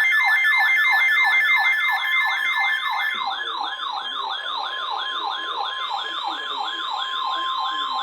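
Weather alert alarm ahead of a new flood warning: a loud siren-like tone sweeping down about four times a second. A rapid high beeping runs over it until about three seconds in. From about halfway, the steady NOAA Weather Radio warning-alarm tone sounds under the sweeps.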